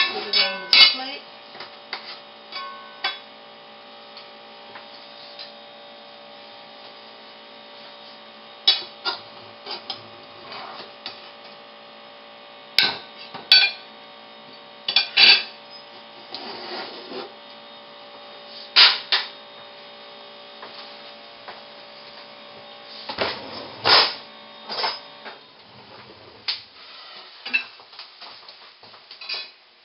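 A metal serving spoon clinks and scrapes against a skillet and a plate as food is dished out, in scattered sharp knocks. A steady hum runs underneath.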